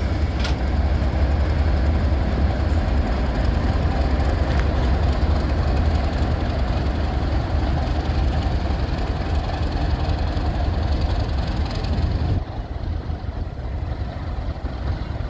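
Class 31 diesel-electric locomotive's English Electric V12 engine running with a steady low rumble as the locomotive moves slowly along the track. The sound drops suddenly in level about twelve seconds in.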